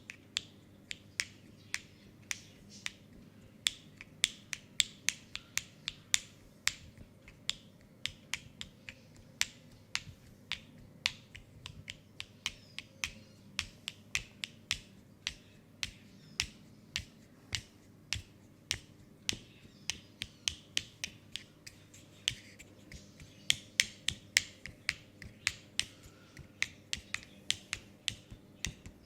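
A rapid, uneven series of sharp clicks and snaps from the masseur's hands during an oil leg and foot massage, about two to three a second and bunching closer together a little after the middle. A faint steady low hum runs underneath.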